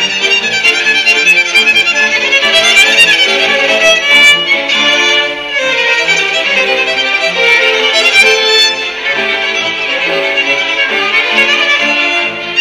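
Youth string orchestra playing a piece together, with violins carrying the melody over cellos and double bass in sustained bowed notes.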